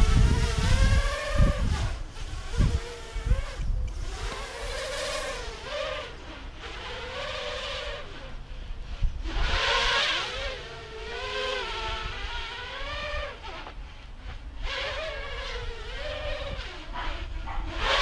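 ZMR 250 racing quadcopter's brushless motors and propellers buzzing in flight, the whine rising and falling in pitch again and again as the throttle changes. There is a low rumble in the first second or two.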